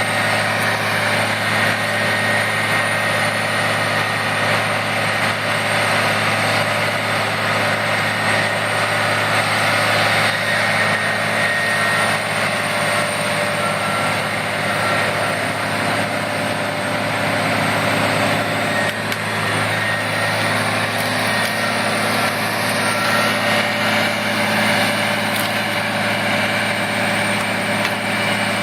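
Large wood chipper's engine running steadily under load, a continuous machine drone.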